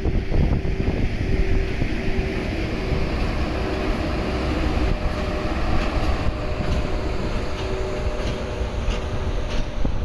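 Electric locomotives EF81 and EF64 running along the track: a steady low rumble with a held tone above it, and a few short clicks near the end.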